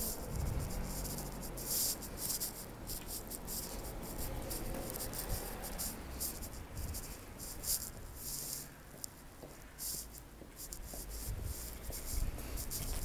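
Outdoor ambience picked up by a phone's microphone: a low uneven rumble with irregular scratchy rustles, the kind made by wind and handling noise on the microphone.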